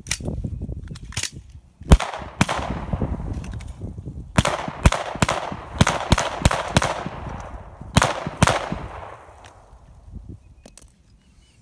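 A string of about a dozen gunshots fired in uneven groups, each followed by a short echo. The shots stop about nine seconds in.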